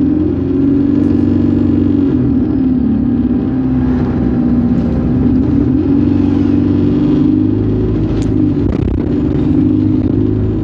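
ADL Enviro200 Dart single-deck bus heard from on board while driving, its engine running steadily with the note shifting a little as it changes speed. A couple of short knocks or rattles come about eight seconds in.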